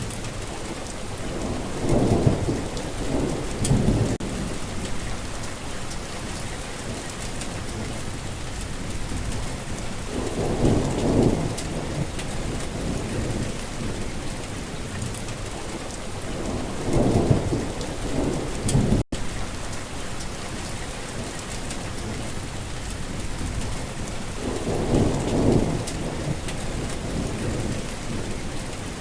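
Heavy rain falling steadily with a dense hiss, while low thunder rumbles swell and fade four times, about every seven seconds. A split-second gap of silence cuts in a little past the middle.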